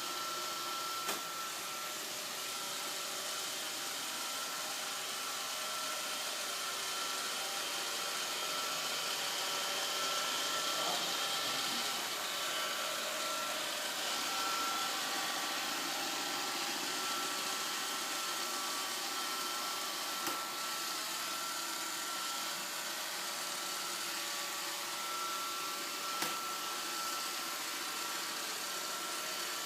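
Roomba robot vacuum running with a steady whirring hiss and a high whine that fades out and comes back. Three short knocks stand out, about a second in, near the middle and near the end.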